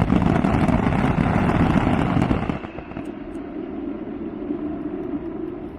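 Fireworks crackling in a dense, rapid rattle that fades about two and a half seconds in, leaving a quieter steady background din.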